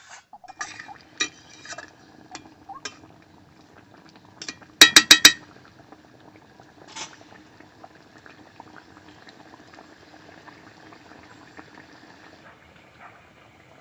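Pot of chicken gravy bubbling steadily. Scattered utensil clinks come in the first few seconds, and a quick run of four sharp, loud metal taps, the loudest sound, comes about five seconds in.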